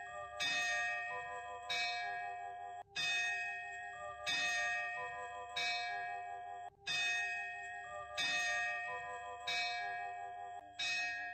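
Bell-like chimes struck about every second and a quarter, each ringing on with several steady tones under the next strike. The pattern briefly cuts out and starts over about every four seconds.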